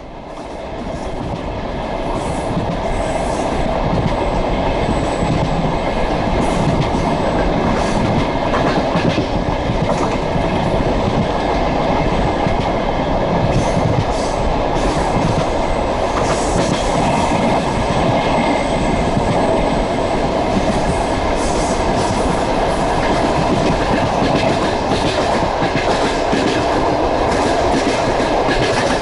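Passenger train running, its wheels clattering over the rail joints with a steady rumble, heard from aboard the carriage. The sound fades in over the first few seconds.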